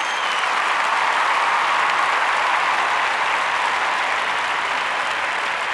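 Steady applause from a crowd, with a short whistle right at the start.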